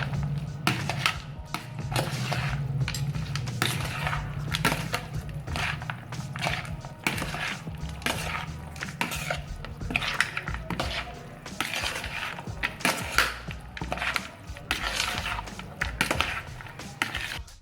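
Cucumber salad being stirred in a bowl: a utensil clinking, tapping and scraping against the bowl in irregular strokes.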